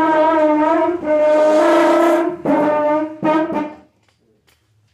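A brass horn sounding four long loud held notes at much the same pitch, the first starting suddenly, falling quiet a little before the end.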